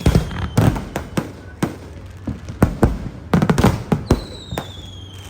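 Fireworks going off: an irregular string of loud bangs and crackles. About four seconds in, a whistle begins and slowly falls in pitch.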